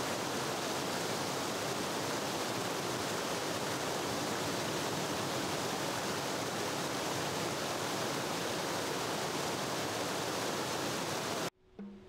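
Steady, even rushing noise that cuts off suddenly near the end.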